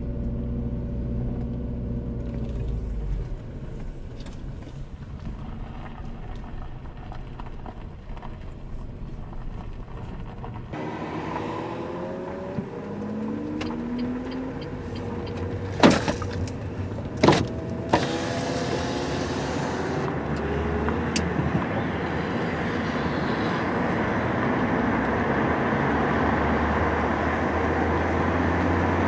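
A car heard from inside, its engine running low and steady, then pulling away with the engine pitch rising as it picks up speed. Road and wind noise build steadily toward the end. Three sharp clicks come about halfway through.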